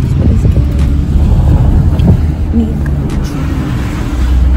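Low, steady rumble of a car heard from inside its cabin.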